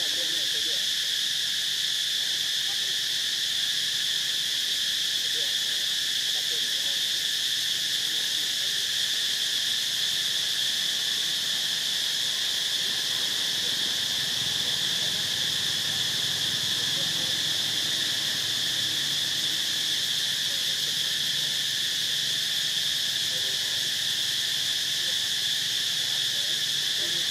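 Steady chorus of forest insects: a continuous shrill drone that holds the same pitch and level throughout without a break.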